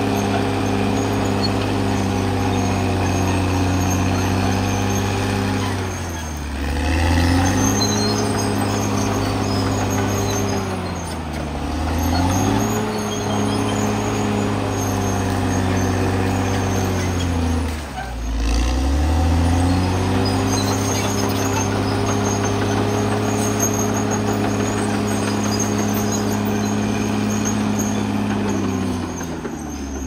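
Caterpillar D6R XL bulldozer's diesel engine running hard and steady. Four times, its speed drops sharply and climbs back within a second or so.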